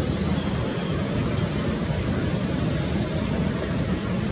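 Boeing 747-8F's four GEnx-2B turbofan engines running at takeoff thrust during the takeoff roll: a steady, deep rumbling noise.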